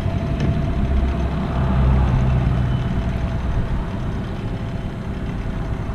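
Small outboard motor on an aluminium dinghy running slowly: a low, steady engine hum that swells a little a couple of seconds in, then eases off as the boat moves away.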